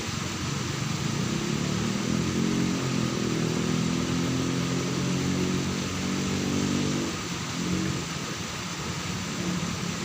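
An engine running steadily, most prominent for about five seconds starting about a second and a half in, over a steady background hiss.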